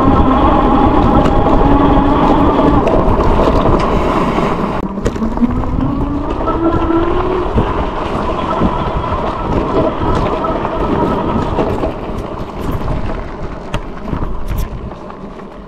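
Electric bike's 1000-watt motor whining under throttle over a heavy low rumble and scattered knocks from riding rough ground. The whine rises in pitch around five seconds in as the bike picks up speed, then turns rougher and fainter toward the end.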